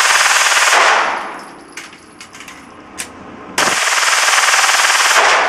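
A 9mm Glock 19 pistol, converted to full auto with an auto sear, fires in long bursts at a cyclic rate of about 1,200 rounds a minute. One burst ends about a second in and echoes off briefly. Another starts about three and a half seconds in and runs about a second and a half.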